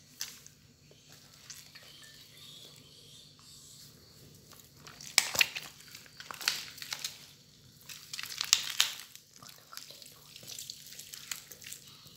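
Hands tearing a whole boiled chicken apart to strip the meat, with irregular ripping and crackling. The loudest crackles come in several short clusters from about five seconds in.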